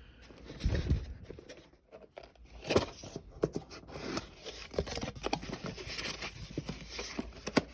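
Sheets of sandpaper being handled and sorted through, rustling and crackling with scattered sharp clicks. There is a dull thump about a second in and a louder crack near three seconds.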